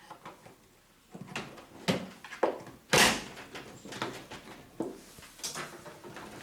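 Knocks and scrapes from hands and tools working on a washing machine's door and gasket, about half a dozen separate handling sounds, the loudest a short scraping clatter about three seconds in.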